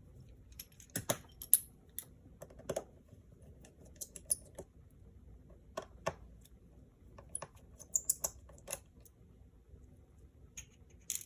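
Small repair tools clicking and tapping on an opened MacBook Air's metal and plastic parts while the backlight cable's connector cover is being taken off. The clicks are light and sharp, come one or a few at a time, and have irregular gaps between them.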